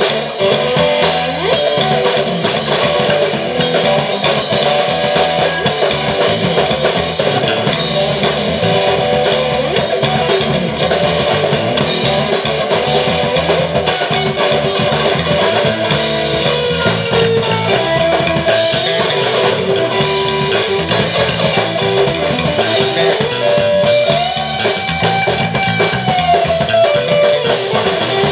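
Live rock trio playing an instrumental passage: electric guitar lead over bass guitar and a Yamaha drum kit. One long note bends up and back down near the end.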